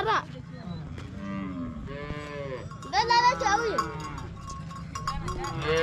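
A herd of long-horned cattle lowing, with several moos one after another and overlapping. The loudest call comes about three seconds in.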